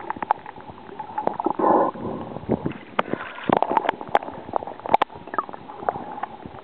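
Muffled underwater sound picked up by a submerged camera: gurgling, moving water with many irregular clicks and knocks, which grow denser about halfway through.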